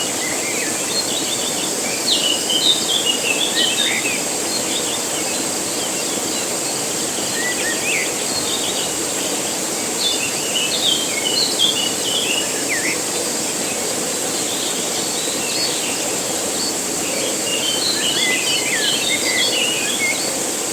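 Waterfall splashing steadily, with birds chirping in short bursts three times and a steady high insect drone.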